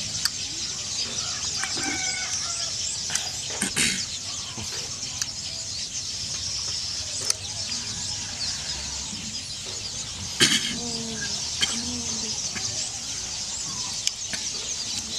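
Chickens clucking now and then over a steady high hiss of outdoor ambience, with a few sharp clicks, about four seconds in and again near ten seconds.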